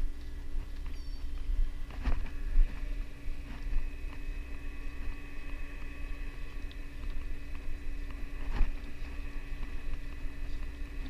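Steady hum of a boat's engine running, with a low rumble of wind on the microphone and a couple of sharp clicks, one about two seconds in and one late on.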